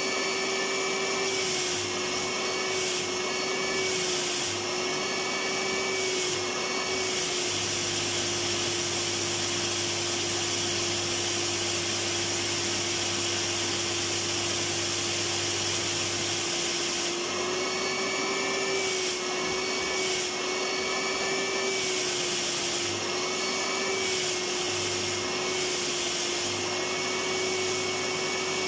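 Electric vacuum cleaner running steadily: a continuous rush of air with a steady motor hum whose pitch wavers slightly now and then.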